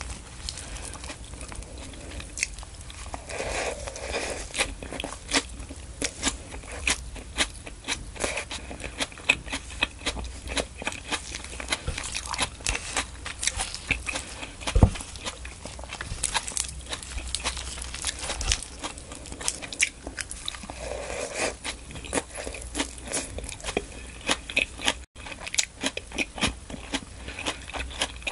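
Close-miked chewing and crunching of a mouthful of crisp leafy greens in onion cream sauce, crackling quick and irregular, with one louder crunch about halfway through.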